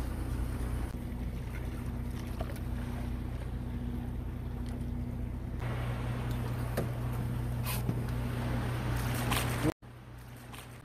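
Steady low hum of the fishing boat's idling engine, with a few faint clicks over it. Near the end the sound drops suddenly to a quieter hum.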